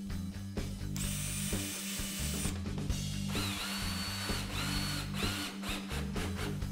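Bosch cordless drill driving screws into plywood. Its motor whines in three separate runs: a longer, higher one about a second in, then two shorter, lower ones around four and five seconds in.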